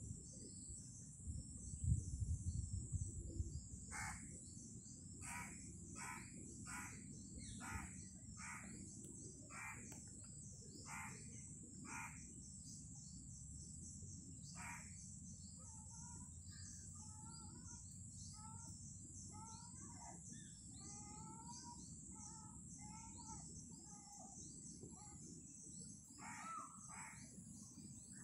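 Birds calling: a run of about a dozen short calls, roughly one every 0.7 s, then a stretch of quicker, lighter chirps, over a steady high hiss. A few knocks of a spatula stirring vegetables in an iron kadhai in the first couple of seconds.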